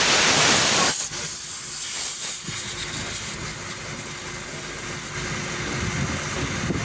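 Compressed air from a workshop air hose hissing loudly, cutting off abruptly about a second in. It is followed by a quieter steady hiss while the air chuck on the valve inflates the truck tyre.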